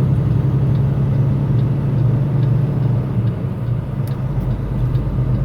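Semi-truck engine running with a steady low drone while the truck drives slowly on a snowy road, heard from inside the cab; a deeper rumble comes in about four seconds in.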